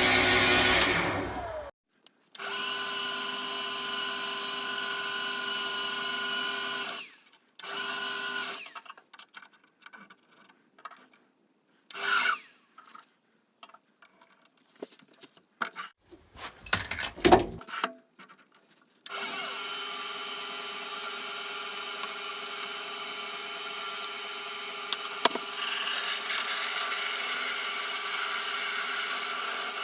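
Metal lathe running with a steady machine hum while turning a bar blank into spindle nuts. The hum stops and restarts abruptly a few times. Through the middle stretch, scattered clicks and knocks replace it, one knock loud, before the steady running returns.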